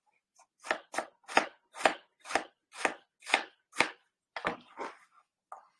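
Kitchen knife chopping a peeled apple on a plastic cutting board: about eight even knocks, roughly two a second, then a few lighter cuts near the end.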